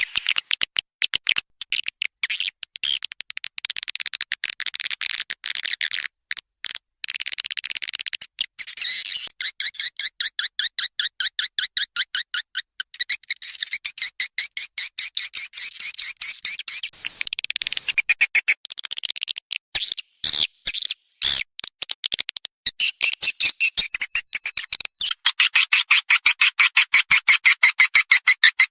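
Swiftlet call lure track: edible-nest swiftlets twittering in fast, dense trains of high chirps. The trains break off briefly twice and come back louder near the end.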